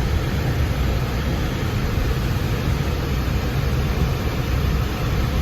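Steady rumble of a car in motion: engine and road noise heard from inside the cabin.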